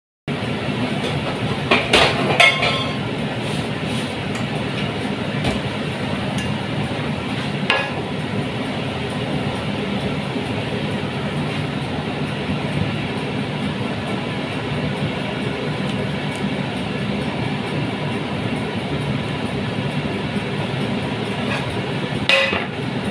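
Metal cookware clinking against an electric stove: a few clinks about two seconds in, one near eight seconds and one near the end, over a steady rushing noise.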